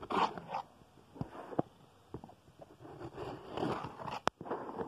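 A cardboard shipping box handled and worked open close to the microphone: irregular scraping and rustling of cardboard, with a few sharp clicks.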